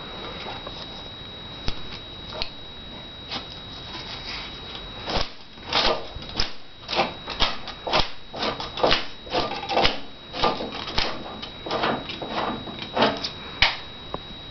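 Irregular clicks, knocks and rustles of objects being handled, sparse at first and then in a dense run from about five seconds in, over a faint steady high-pitched tone.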